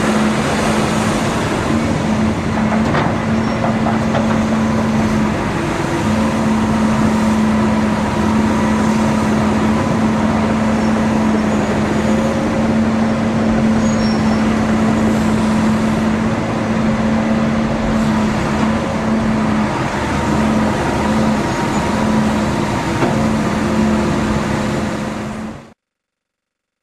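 Six-cylinder turbocharged diesel engine of a 1997 John Deere 892E LC excavator running steadily, with a steady low hum over the engine noise; the sound cuts off abruptly near the end.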